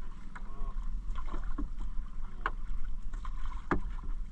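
Wet fishing net being hauled hand over hand into an outrigger canoe, water splashing and streaming off the mesh with a few sharp slaps and knocks against the hull, over a steady low rumble.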